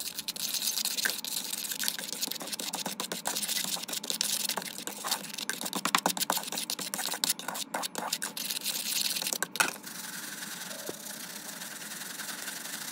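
Metal fork stirring a dry spice mix of salt, pepper and dried citrus zest in a plastic cup, with rapid scraping and ticking against the plastic. After about ten seconds it turns to a softer, steadier swishing.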